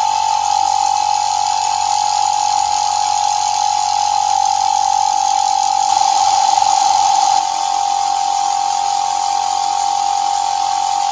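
Small cordless tyre inflator (Black & Decker Matrix inflator attachment) running steadily with a high hum, its compressor pumping up a wheelbarrow tyre toward 30 psi. It gets a little louder for about a second and a half about six seconds in.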